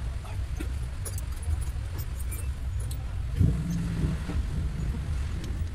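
Small metal clinks and taps as engine parts and tools are handled, over a steady low rumble, with one slightly louder knock a little past halfway.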